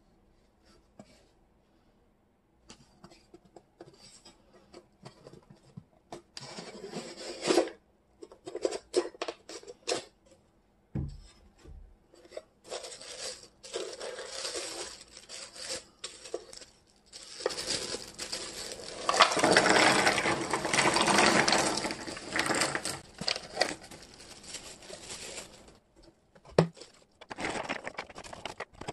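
Handling of a wooden jigsaw puzzle box: scattered clicks and rustling of the wooden box and tissue paper, with a dull thump partway through. This is followed by a long dense clatter and rustle as the wooden pieces are tipped out onto a cork board, then lighter clicking as the pieces are spread by hand.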